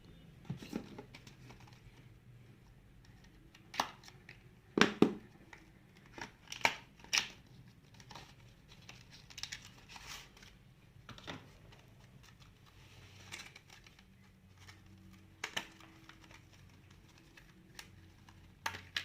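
The sealed retail pack of a RAM kit being opened and handled: scattered crinkling and tearing with sharp clicks, a second or more apart.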